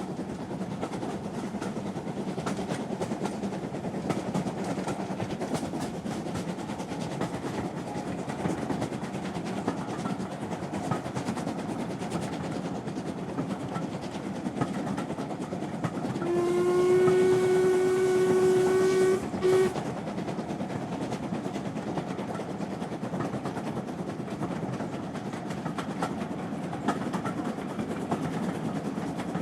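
Train running at a steady speed: a constant rumble with faint rail clicks. About halfway through, its whistle sounds once for about three seconds, a single held tone with a hiss, then gives a short extra toot.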